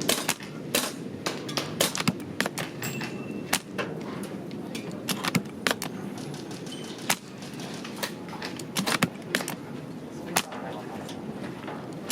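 Airsoft guns firing: scattered sharp pops and clicks at uneven intervals, some in quick clusters, over a steady low rumble of strong wind on the microphone.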